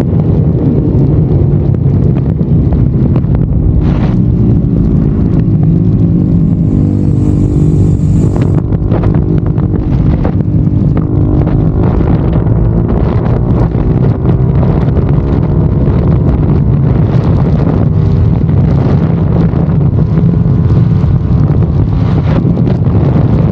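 BMW G310RR's single-cylinder engine running steadily through an aftermarket exhaust while the bike is ridden, its note slowly falling and rising again a couple of times. Wind buffets the microphone throughout.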